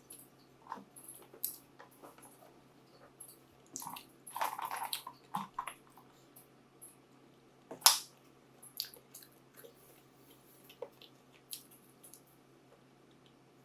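Close-miked eating sounds: chewing with scattered small wet mouth clicks, a denser run of chewing noise about four seconds in, and one sharp loud click about eight seconds in.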